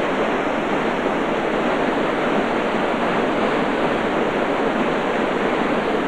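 A steady, even rushing noise with no distinct tones or rhythm.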